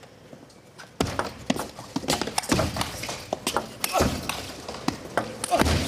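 Table tennis rally: the celluloid ball clicks off the rubber paddles and the table in a quick, uneven rhythm, with shoes squeaking on the court floor as the players lunge. It starts about a second in, after a brief quiet.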